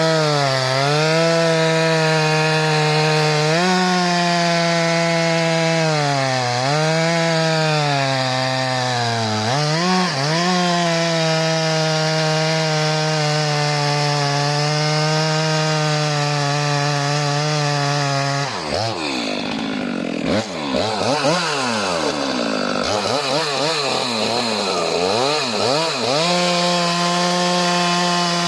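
STIHL MS 462 single-cylinder two-stroke chainsaw with a 90 cm bar cutting through a log at high revs, its pitch dipping several times as the chain bogs in the cut. About two-thirds through, the engine speed sags and swings up and down for several seconds under heavy load, then recovers to steady high revs near the end.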